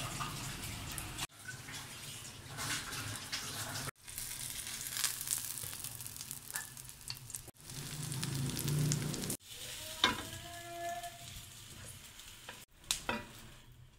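Oil sizzling in a nonstick pan as an egg-dipped bread slice fries, the sizzle cutting off and starting again abruptly several times. A few sharp taps sound in the second half.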